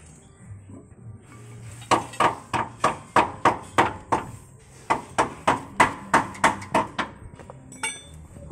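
Hammer striking metal in steady blows, about three a second: two runs of about eight ringing blows each with a short pause between.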